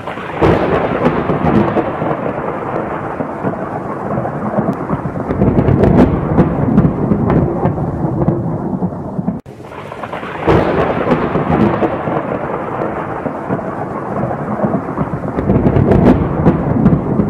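Thunderstorm sound effect: rumbling thunder over rain, with a few sharp cracks. It breaks off suddenly about halfway through and starts over.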